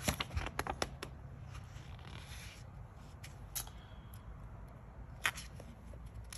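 A book's paper pages being turned by hand: a brief rustle of paper about two seconds in, among a few light clicks and taps of fingers on the pages.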